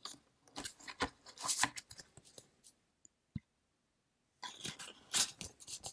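Baseball trading cards being handled and sorted by hand: soft scrapes, slides and light taps in scattered bursts, with one sharper click about halfway through and a brief quiet stretch before the handling picks up again near the end.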